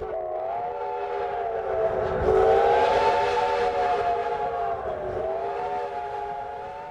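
Train whistle sounding one long chord of several notes, its pitch wavering slowly up and down, loudest around the middle.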